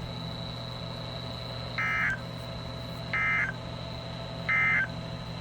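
Emergency Alert System end-of-message signal: three short, identical buzzy bursts of SAME digital data tones, a little over a second apart, closing the alert. Under them runs a steady low hum with a faint high whine.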